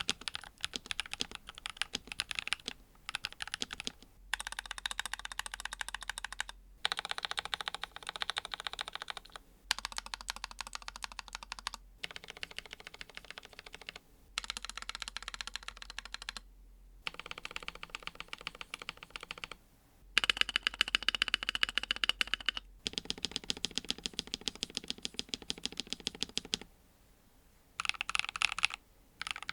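NuPhy Halo-series mechanical keyboard typed on quickly, a dense run of key clacks in stretches of a few seconds, broken by short pauses.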